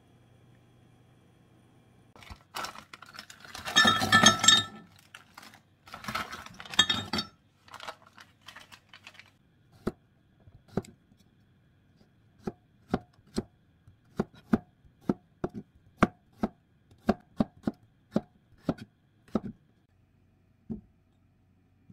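Kitchen knife slicing garlic cloves on a plastic cutting board: a run of sharp, even taps, about two a second, over the second half. Before that come several seconds of louder, denser clattering and rustling.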